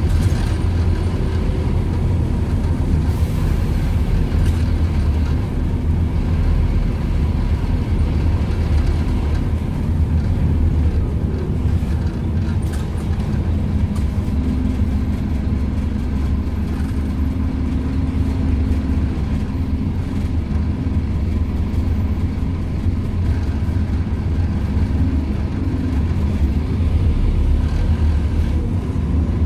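Scania DC9 diesel engine of a Scania N230UD OmniCity bus driving along, heard from inside the passenger saloon: a steady low drone mixed with road and body noise, the engine note changing about halfway through.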